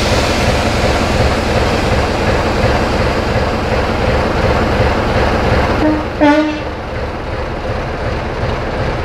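Class 25 diesel locomotive's Sulzer six-cylinder engine running steadily as it shunts slowly, with a short horn note about six seconds in.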